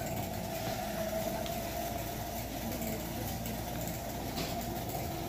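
Steady whirring hum of a bicycle's wheel and drivetrain spinning on a homemade wooden bike stand as it is pedaled.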